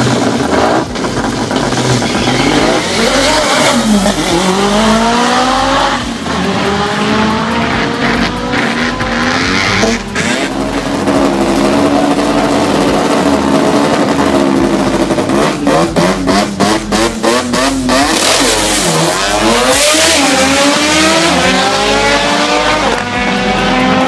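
Drag-racing cars launching off the line and accelerating down the strip, their engines revving up in rising sweeps through the gears, with tyres squealing. Roughly two-thirds of the way in comes a fast run of sharp cracks from an engine.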